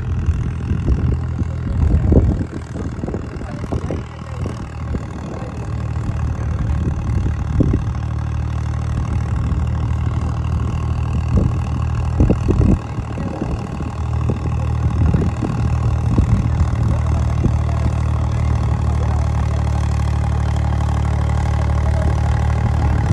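Tractor diesel engine running steadily under load while pulling a tined cultivator through the soil, growing slowly louder as it approaches, with a few short bumps and rattles in the first half.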